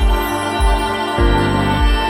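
Background music: sustained synth chords over a steady bass beat, a low note about every 0.6 s.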